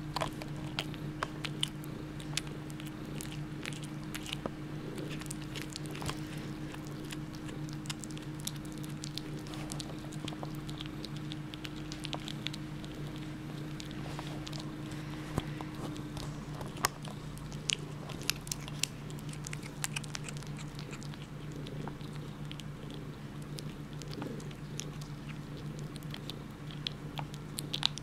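A kitten chewing and biting on a meat bone: scattered small crunching clicks of teeth on bone, over a steady low hum.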